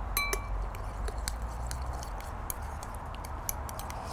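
Metal spoon clinking against a ceramic bowl: one ringing tap near the start, then light scattered clicks and scrapes as a chunky dressing is stirred.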